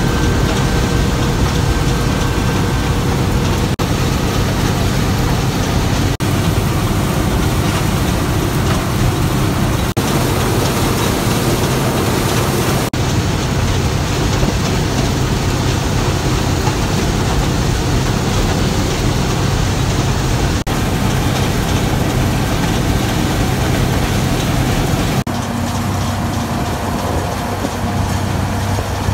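International Harvester 1460 combine running under load while harvesting soybeans: a steady diesel engine and threshing drone with a low hum and a broad rush of machinery noise. The sound shifts abruptly several times where clips are joined.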